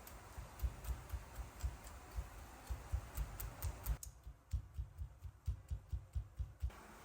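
A quick, uneven series of dull thumps, each with a light click, about three or four a second, stopping shortly before the end.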